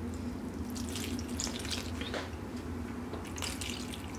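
Boiling water poured from a glass in splashing, trickling bursts onto dried stuffed peppers in a stainless steel pot. A steady low hum runs underneath.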